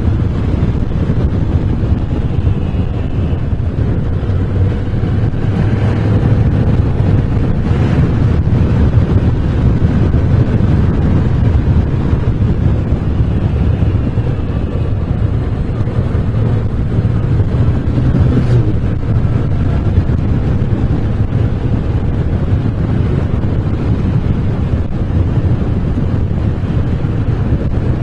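Moto Guzzi V7's 750cc air-cooled V-twin engine running while being ridden, its note rising and falling with the throttle, with wind buffeting the microphone throughout.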